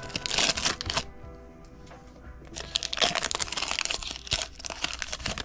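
Foil trading-card booster pack wrapper crinkling and crackling in two bursts, one in the first second and a longer one from about three seconds in, over soft background music.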